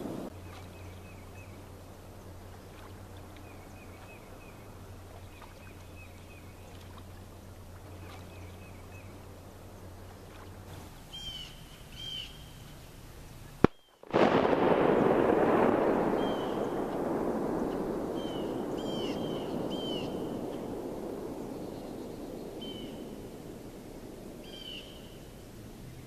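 Small birds chirping in short repeated calls over a low steady hum. Near the middle comes a single sharp bang, then a loud rushing noise starts abruptly and slowly fades while the chirping goes on.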